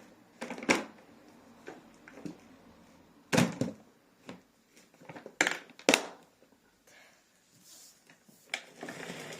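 A handful of separate knocks and clatters of hard objects being handled, loudest about a third of the way in and just past the middle, with no motor running.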